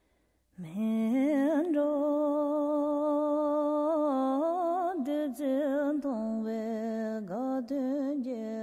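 A single voice singing a slow melody in long held notes with quick wavering ornaments, starting about half a second in after near silence.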